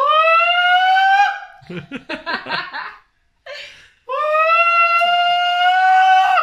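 A man sings a loud, sustained high note straight into a crystal wine glass held at his mouth, trying to hit the glass's resonant frequency and shatter it. The note slides up at the start and is then held, twice, with a burst of laughter between the two tries.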